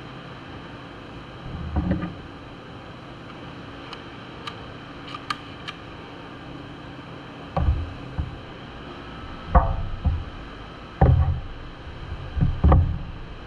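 A series of knocks and clunks, with a few light clicks in between, over a steady machine hum.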